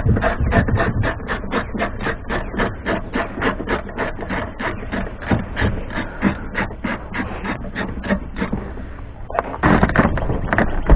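Hacksaw cutting through a steel truck door hinge pin with quick, even rasping strokes, about five a second. Near the end it gives way to a louder, rougher noise.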